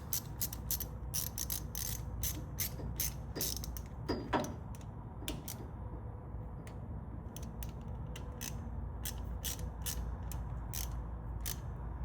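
Ratchet wrench clicking in runs of quick strokes, tightening a battery cable terminal nut, with a brief metallic clink about four seconds in.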